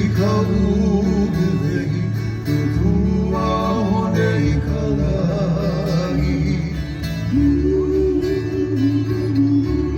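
Live Hawaiian band music led by acoustic guitars, plucked and strummed.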